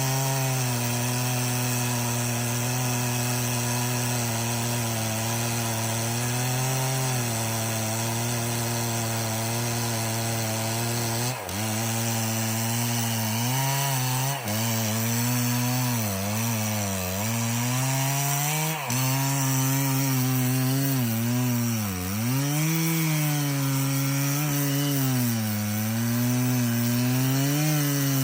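Stihl 066 two-stroke chainsaw running under load while cutting an old red oak log. The engine holds a steady pitch for the first ten seconds or so, then its pitch repeatedly sags and recovers as the chain bogs and frees in the cut, with a few brief breaks.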